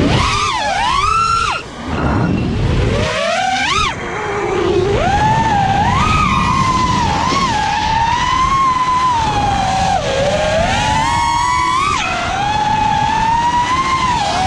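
FPV quadcopter's brushless motors and propellers whining, the pitch sliding up and down with the throttle over the rush of flight wind. The whine drops away briefly twice in the first four seconds.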